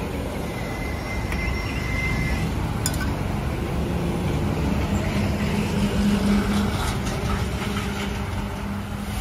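Road traffic running close by, with a passing vehicle's engine hum growing and fading in the second half. A single light clink about three seconds in.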